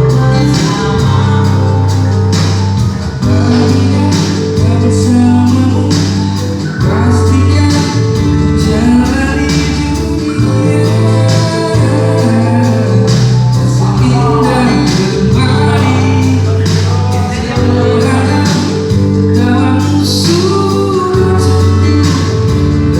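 A song with a steady beat and a repeating bass line, with amateur singing over it that the uploader owns is off-key.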